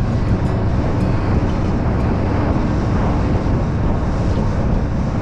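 A center-console fishing boat running at speed under its Mercury 300 V8 outboard: a steady rush of wind on the microphone, water along the hull and the engine's low drone.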